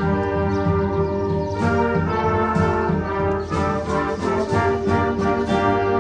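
Concert wind band playing live: brass and woodwinds sustaining full chords over a low line that moves from note to note.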